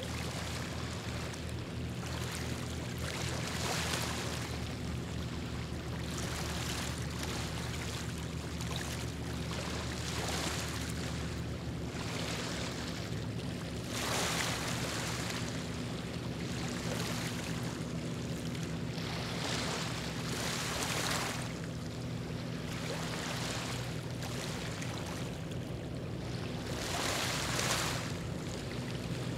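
Water lapping and wind on the microphone, a hissing noise that swells and fades every few seconds, over a steady low engine hum.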